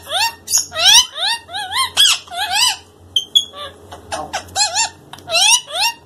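Alexandrine parakeet chattering in its squeaky, speech-like talking voice: a quick run of short calls that glide up and down in pitch, with a brief pause about three seconds in.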